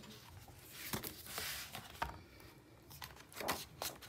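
A hardback picture book being opened on a table and its pages turned: soft paper rustling and sliding, with a few light clicks and knocks.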